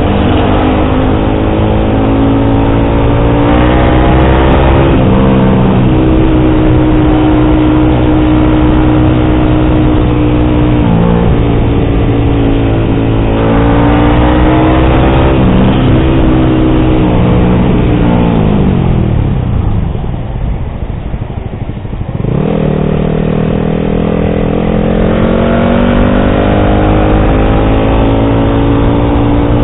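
Yamaha R15 V3's single-cylinder engine through an aftermarket SC Project exhaust with a dB killer, pulling through the gears with the pitch climbing, holding and dropping at shifts. About two-thirds of the way through, the throttle closes and the exhaust falls quieter and lower, then it picks up and accelerates again.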